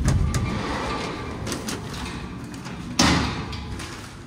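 A sliding door rumbling along its track with some clatter, then shutting with a loud bang about three seconds in.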